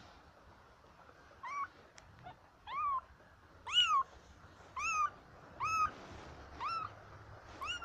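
Young kitten mewing: a series of short, high-pitched mews about once a second, each rising and then falling in pitch, starting about a second and a half in.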